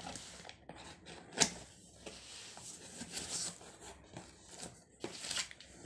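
A cardboard shipping box being pulled open by hand: flaps tearing, crumpled kraft-paper packing rustling, with sharp knocks and clicks, the loudest about a second and a half in.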